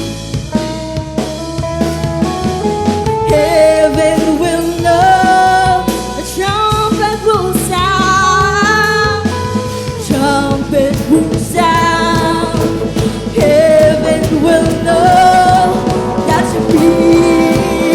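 Live praise and worship music: a band playing with singing over it.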